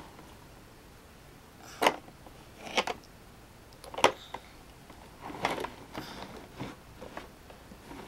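Plastic shape-sorter blocks knocking and clicking against the hard plastic lid and bucket as a triangle block is worked into its slot: about six separate sharp clacks, spaced a second or so apart, the sharpest about four seconds in.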